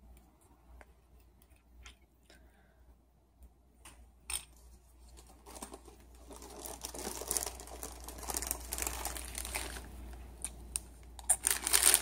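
A few light clicks, then rustling in a canvas backpack and the crinkling of a foil snack bag being handled, building from about halfway and loudest near the end.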